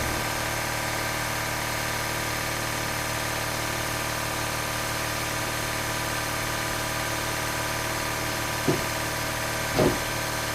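Truck engine idling steadily on its first start after a new wiring harness was fitted, with two short louder blips near the end.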